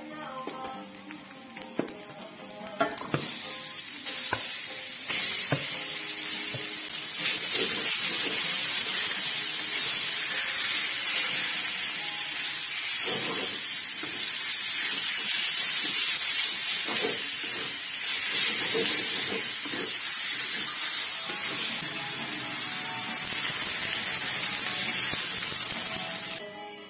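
Pork pieces frying in hot oil in a metal wok: a loud, dense sizzle, with the knocks of a wooden spatula stirring them. The sizzle builds up over the first several seconds and stops abruptly near the end.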